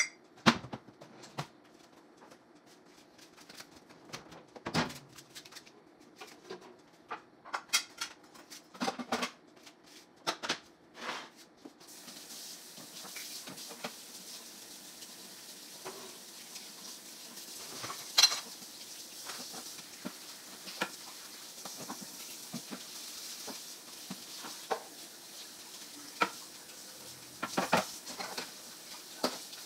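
Dishes and metal kitchenware clinking and knocking as they are handled. About twelve seconds in, the kitchen faucet comes on and water runs steadily into a stainless sink while a frying pan is rinsed, with more clanks of pans and dishes over the running water.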